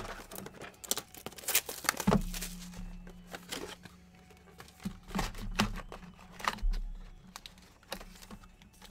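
Hands handling and opening cardboard trading-card boxes: crinkling and tearing of packaging with scattered taps and knocks. A low steady hum runs for about three seconds starting about two seconds in.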